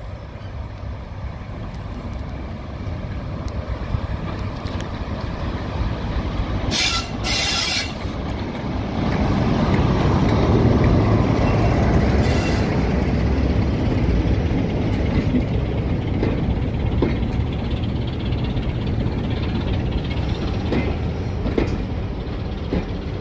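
A BR Class 47 diesel-electric locomotive with a twelve-cylinder Sulzer engine running as it approaches and passes close by, growing louder to a peak about ten seconds in. There are short hisses of air at about seven and twelve seconds in. The hauled coaches then roll past, their wheels clicking over the rail joints.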